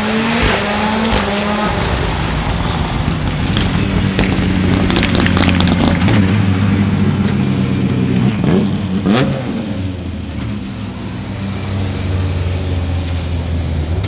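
M-Sport Ford Fiesta WRC rally car's 1.6-litre turbocharged four-cylinder engine running hard as the car drives off, with a burst of sharp cracks from the exhaust around the middle.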